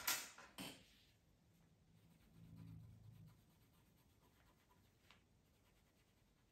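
Wooden coloured pencils clattering together as one is picked out of a row on a tabletop: a sharp rattle, then a second shorter one. After that come faint pencil strokes on paper, with a brief low hum in the middle.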